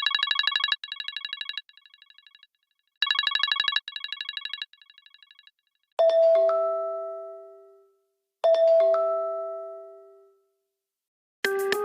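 Synthesized iPhone notification tones: a rapid fluttering electronic trill sounds twice, each time repeating softer in three steps, then two separate low two-note chimes ring out and fade over about two seconds each. Keyboard-like ringtone music begins at the very end.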